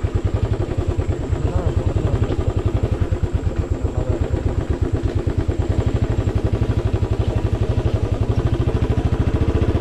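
Royal Enfield motorcycle engine running at a steady low pace, its exhaust beating in an even, rapid pulse.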